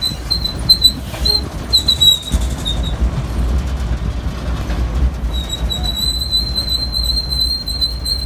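Zocotren tourist road train riding along: a steady low rumble with a thin, high squeal that comes and goes in short bits at first, then holds steady from about halfway.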